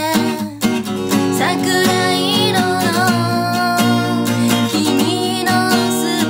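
Acoustic guitar strummed with a capo on, accompanying a solo voice singing. A long note is held with a slight waver around the middle.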